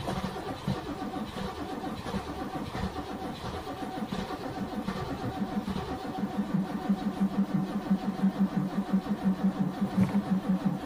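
A Chevrolet NASCAR Cup car's pushrod V8 running, uneven at first, then settling about six seconds in into a steady, strongly pulsing idle.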